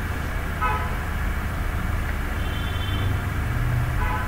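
Steady low rumble of road traffic with short vehicle horn toots, one just over half a second in and a fainter, higher one around two and a half seconds in.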